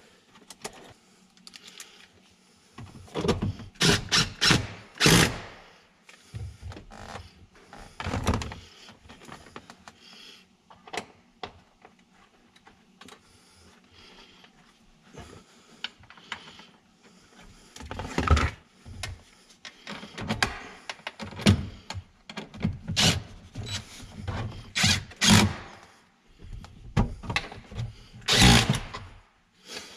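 Scattered clunks, clicks and rattles from hand work on a GM pickup's open door and the wiring connectors at its hinge pillar. The knocks come in clusters, with a quieter stretch in the middle.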